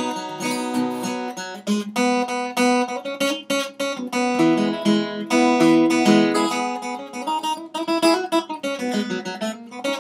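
Acoustic guitar picking and strumming a bluegrass tune, with no singing.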